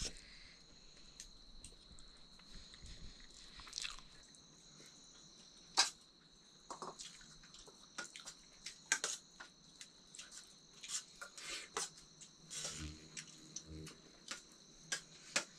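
People eating a meal: scattered soft clicks, crunches and chewing sounds, the sharpest about six seconds in. Behind them a steady high-pitched insect chorus carries on throughout.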